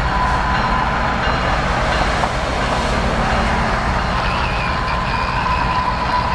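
Diesel locomotive engine of a GE ES44AC running with a steady low rumble, a steady high whine over it that dips slightly in pitch near the end.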